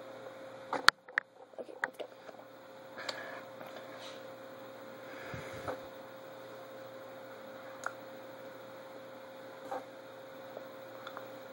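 Steady electrical hum with faint hiss, broken by a few short clicks and small knocks; the sharpest click comes about a second in.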